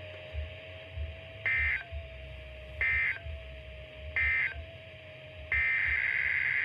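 Emergency Alert System SAME digital data bursts: three short warbling data chirps, evenly spaced about a second and a half apart, marking the end of the alert message. About five and a half seconds in, a longer data burst begins the coded header of the next alert. A faint steady tone hangs between the bursts.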